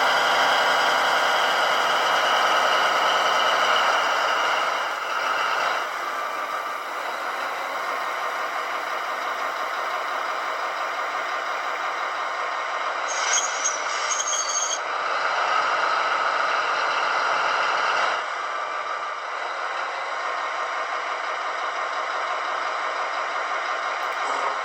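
Model diesel locomotive's digital sound decoder playing a diesel engine sound through its small speaker: the engine note is louder at the start, eases off about four seconds in, and picks up again briefly around three-quarters of the way through. A short hiss of air sounds a little past the middle.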